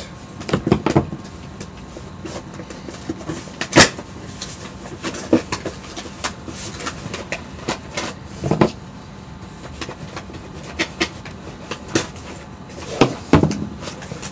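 A cardboard shipping box being opened and unpacked by hand: scattered rustles, scrapes and knocks, with one sharp click about four seconds in.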